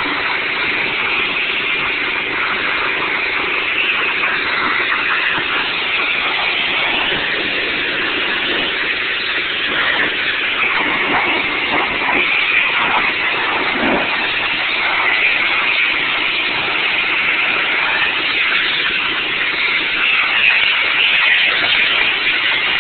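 High-pressure water jet from a pressure washer wand spraying across clay barrel roof tiles: a steady, loud hiss of spray. The pressure washer's engine runs steadily underneath.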